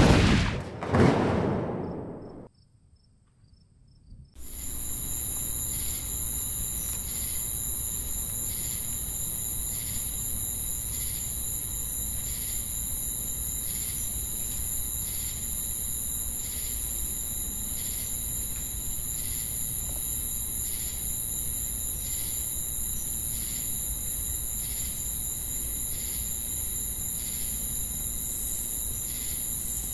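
Insects chirring steadily in the summer countryside: a continuous high-pitched buzz with a faint pulse about once a second, over a low rumble. It sets in about four seconds in, after a brief loud intro sound and a moment of near silence.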